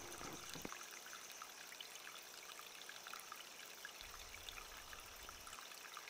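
Faint trickling water, a low steady hiss with small scattered drips and ticks.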